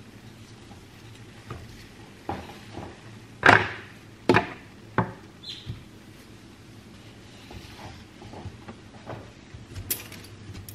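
Dishes and kitchenware handled while washing up: a string of knocks and clatters, the loudest about three and a half seconds in, with lighter taps and a sharp click near the end.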